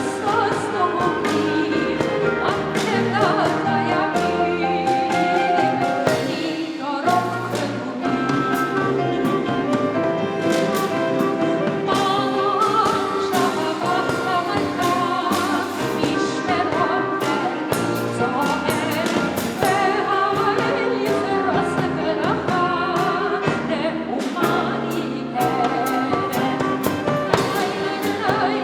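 A small klezmer ensemble playing, with a voice singing over the instruments, a bass line and regular percussion strikes.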